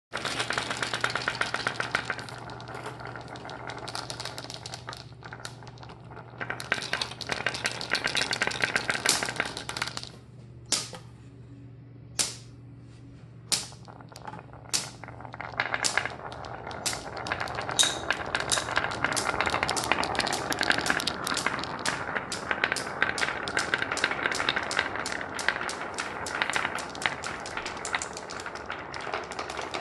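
Marbles clattering and clicking along a marble run track. Around the middle come a few separate sharp clacks about a second apart, followed by a fast, steady stream of clicks as many marbles run down together.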